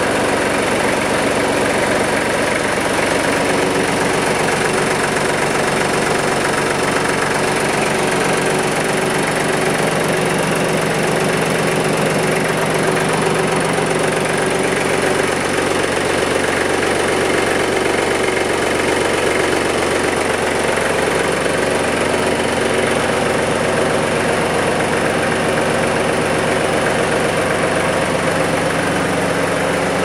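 Kubota KL30 tractor's diesel engine idling steadily.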